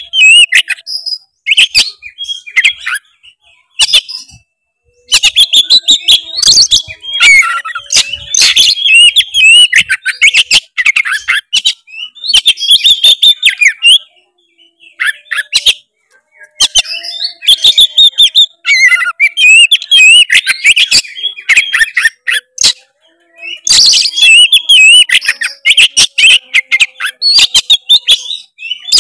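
Oriental magpie-robin (kacer) singing loudly and continuously in long runs of varied, quickly changing whistles and warbles mixed with sharp ticking notes. The song stops in short pauses three times before starting up again.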